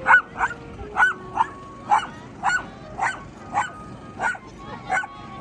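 A dog barking repeatedly in an even rhythm, about two barks a second.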